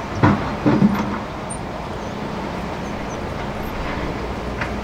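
Hydraulic excavator's diesel engine running steadily while it works its bucket in a shallow river. A few loud knocks come in the first second, as the bucket and arm work in the stony riverbed, and another sharp knock comes near the end.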